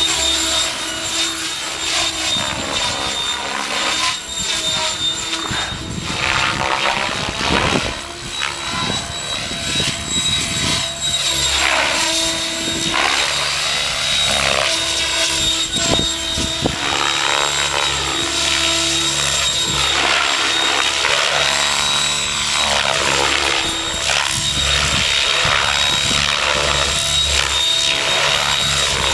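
Mikado Logo 600 electric RC helicopter flying 3D aerobatics: the rotor's whoosh sweeps up and down as it swoops, flips and passes, over a steady high whine from the electric motor.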